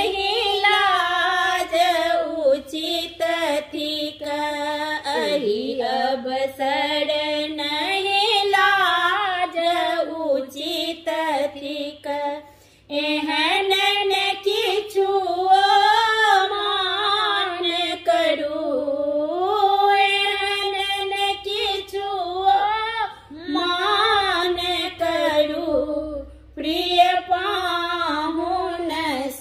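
Two women singing a Maithili wedding song for the sindoor-daan rite, unaccompanied, in long drawn-out melodic lines, with a brief pause about halfway through.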